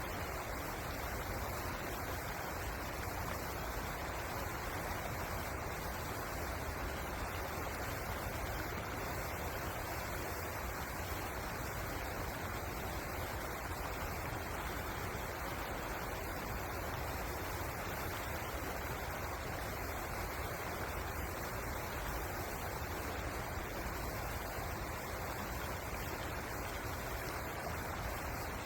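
River water rushing steadily, an even, unbroken wash of noise.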